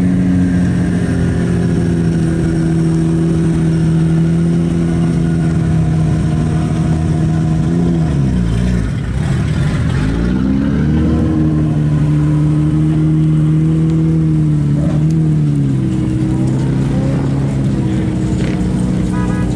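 Car engines running at steady revs as they pull out: first a Nissan Skyline R32, then a BMW F12 6 Series convertible, heard close to its exhaust. The engine pitch drops away and climbs back about halfway through, and dips again near the end.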